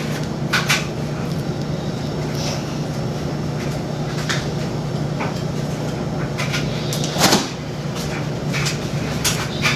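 Kitchen clatter while cooking: scattered knocks and clicks of items being handled and set down, over a steady low hum. The loudest knock comes about seven seconds in.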